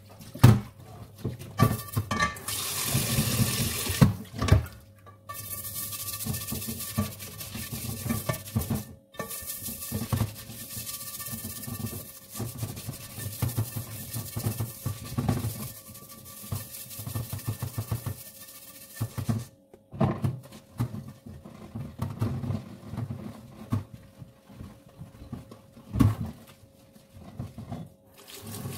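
Dishwashing at a kitchen sink: a pot scrubbed with a soapy sponge, tap water running for long stretches, and cookware clanking against the sink a few times, loudest about 4 s in and near the end.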